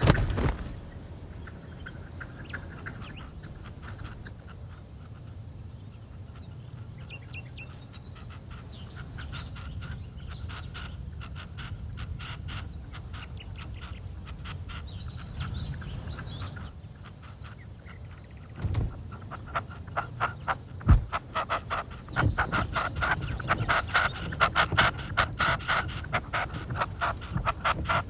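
Red-legged partridges calling: runs of rapid, evenly repeated chattering notes. A shorter run comes in the first half, and a longer, louder run in the second half. A single sharp thump comes about three-quarters of the way through.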